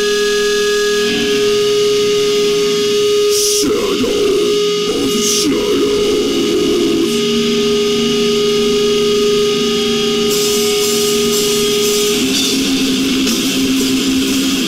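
Heavy metal band's distorted electric guitars played live through a tube amp: one long steady note rings for about twelve seconds with two short crashes early on, then new riffing starts near the end.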